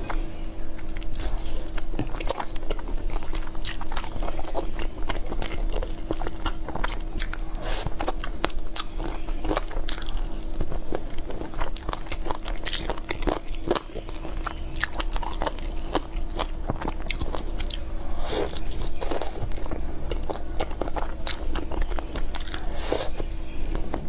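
Close-miked eating: biting, crunching and chewing braised duck collarbones, gnawing the meat off the bones, with many short wet clicks from lips and teeth. A faint steady hum runs underneath.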